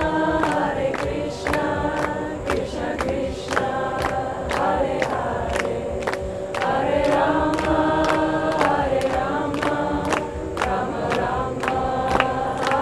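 Several voices singing a chant together in long held notes that move in harmony, over a steady percussive beat of about two strikes a second.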